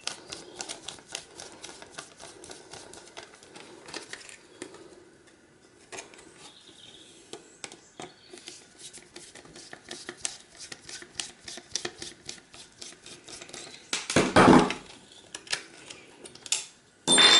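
Screwdriver backing a small screw out of a circuit board to free a MOSFET, a run of quick irregular clicks and ticks of metal on metal and board. About fourteen seconds in there is a loud thump, and a sharp metallic clink near the end.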